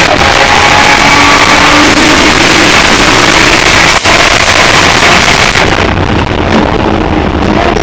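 Nissan Skyline R33 GTS-T's turbocharged RB25DET straight-six running hard, heard inside the stripped race car's cabin, very loud and distorted. It breaks off for a moment about four seconds in and sounds duller over the last couple of seconds.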